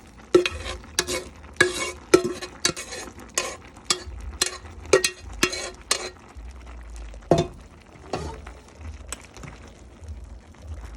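A spoon knocking and scraping against a pot about twice a second as sautéed onions, garlic and green peppers are scraped out over the greens, with a light sizzle; the knocks thin out to a couple of last ones around seven and eight seconds in.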